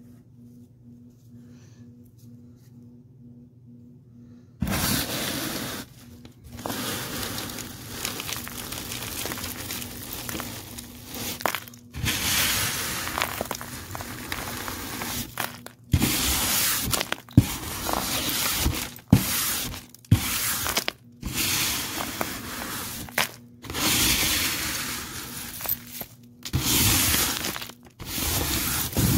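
Eureka Airspeed Compact vacuum cleaner sucking up dirt, confetti, small gems and coins through a tool held to the floor, with heavy crunch of debris. It comes in suddenly about four and a half seconds in after a faint low hum and runs in stretches, broken by several brief breaks.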